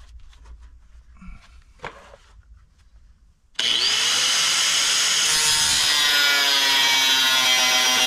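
Makita angle grinder starting up about three and a half seconds in and cutting into a metal bracket: a loud, steady grinding with a high whine, after a few quiet seconds with faint clicks.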